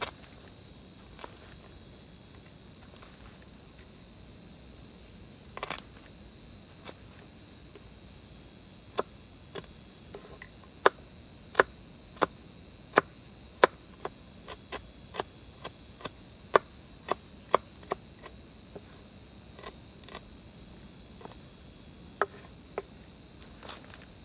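Knife cutting on a wooden cutting board: sharp, irregular knocks, scattered at first and then about one a second through the later part, as small spice pieces are sliced. Under them runs a steady, shrill chirring of insects.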